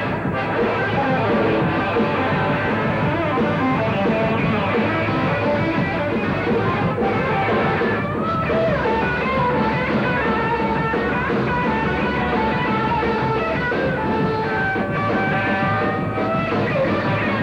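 Live rock band playing: an electric guitar lead with sliding bends over the full band.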